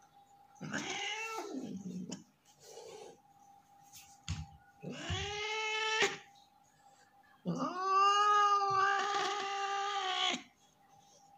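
Angry ginger tabby tomcat yowling in three drawn-out cries with a hissing edge, the last the longest and loudest at about three seconds: a defensive warning to be left alone.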